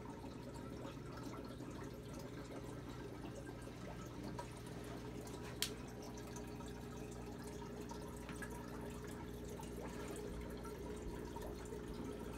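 Aquarium bubbler running: air bubbles gurgling and splashing steadily in the tank water over a low, steady hum. A single sharp click comes about five and a half seconds in.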